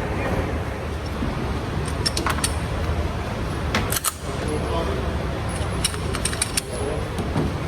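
A steady low rumble, with several short clusters of light metallic clicks and rattles. No shots are fired.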